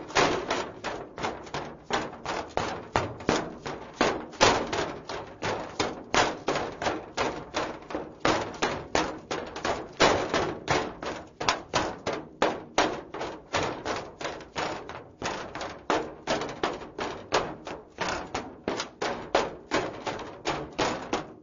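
Men's heeled shoes running on a metal surface: quick footsteps, about three to four a second, each striking sharply with a slight ringing tail.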